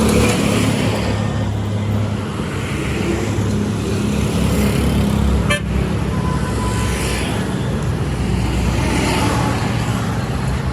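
Heavy road traffic: engines running and vehicles passing, with horns tooting now and then. A single sharp click sounds about five and a half seconds in.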